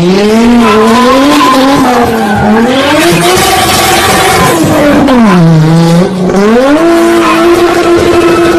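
Modified Toyota Supra MK4's straight-six engine revving hard, its pitch rising and falling, dropping low about five seconds in, then climbing and holding steady, with tyres squealing.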